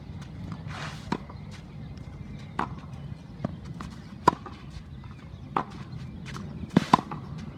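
Tennis rally on a clay court: sharp pops of the ball coming off racket strings and bouncing on the clay, roughly one every second. The loudest hits come about four seconds in and as a quick double near the end.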